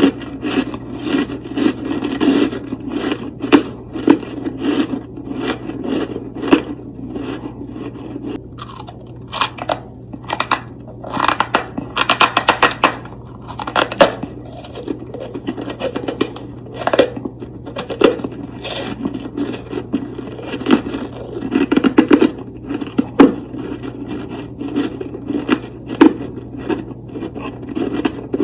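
Close-miked crunching and scraping of powdery freezer frost, a long irregular run of short crunchy strokes with a denser crackling flurry about midway.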